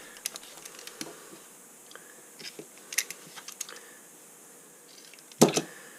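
Scattered small clicks and taps of hand work with tools and the fiberglass stove-door gasket, with one louder knock about five and a half seconds in.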